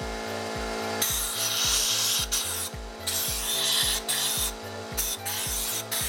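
Several long scraping strokes on a bare aluminium motorcycle crankcase half, worked by hand, starting about a second in, over background music with a steady beat.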